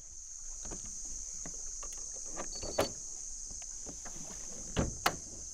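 Steady high-pitched insect chorus, with scattered light knocks and clicks and a few louder knocks near the end.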